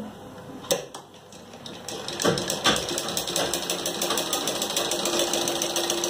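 A Rama treadle sewing machine starting to run, worked by the foot pedal: after a single click it clatters up to speed about two seconds in and keeps going at an even, rapid rate. The freshly cleaned and oiled pedal and hand wheel run smoothly and freely.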